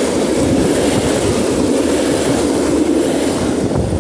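Freight train wagons rolling past on the rails, a steady loud rumble of wheels on track. It begins to fade near the end as the last wagon goes by.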